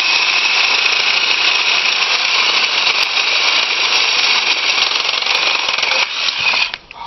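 A battery-powered saw cutting through galvanized steel gas pipe, running steadily with a high-pitched whine, then stopping near the end.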